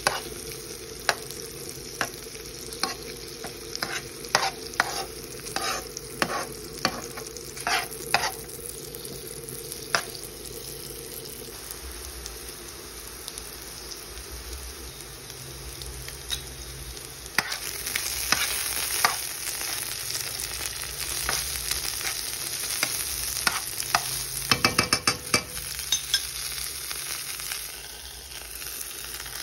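Sliced sausage, peppers and garlic sizzling in oil in a nonstick pan while a metal spoon stirs them, clinking and scraping against the pan. The sizzle gets louder about two-thirds of the way through, and there is a quick run of clicks near the end.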